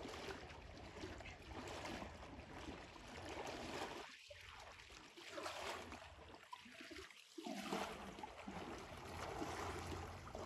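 Faint sloshing and splashing of river water around a person's legs as he wades across a shallow river.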